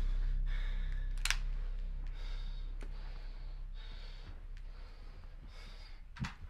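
A low rumbling drone fading slowly and evenly, the dying tail of a burst of gunfire, with faint breathing and a few small sharp clicks over it.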